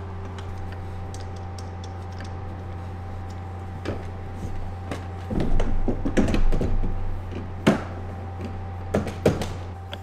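Scattered clunks and sharp clicks of hard plastic kayak fittings being handled and fastened, heaviest in the second half, over a steady low hum.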